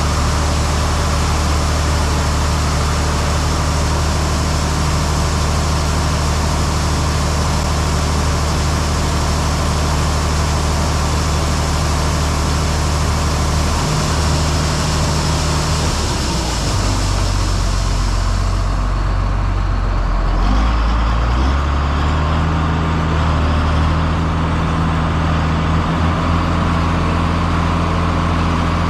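Heavy vehicle engine running steadily. About sixteen seconds in its note drops lower and the hiss above it falls away, then it settles to a steady run again.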